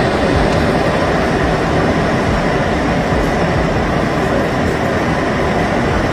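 Strong storm wind in a loud, steady roar.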